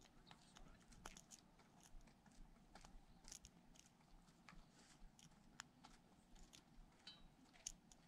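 Faint, irregular clicks and light scraping of a lock pick working the pin stack of a Gold Dragon six-pin padlock fitted with security pins, as the pins are set one by one.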